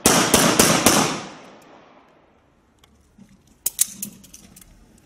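A rapid string of about four handgun shots in the first second, each ringing out with a long echo that fades over the next second. A couple of sharp clicks follow near the end.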